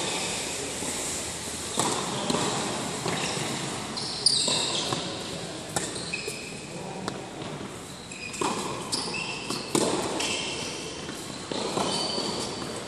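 Tennis balls struck by rackets during a rally on an indoor hard court: sharp pops every second or two, echoing in the large hall, with short high sneaker squeaks on the court surface between shots.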